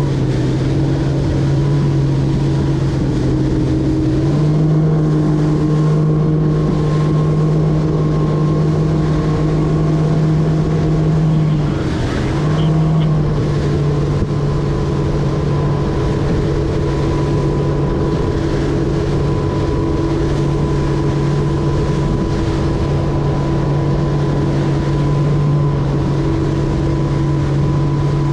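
A 200 hp Mercury outboard motor pushing a center-console boat at a steady cruise. The engine note steps up slightly a few seconds in and dips briefly about twelve seconds in before settling back.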